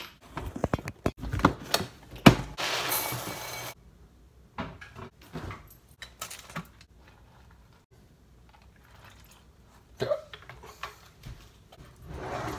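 Kitchen handling clatter of knocks and clicks, then about a second and a half of dry cereal pouring into a ceramic bowl, followed by scattered taps.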